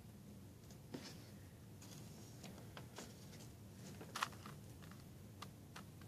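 Plastic Rubik's Cube being handled and its layers turned by hand: scattered light clicks, the loudest about four seconds in, over a faint steady hum.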